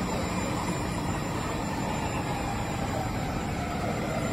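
Steady low rumble of downtown traffic, with no distinct event standing out.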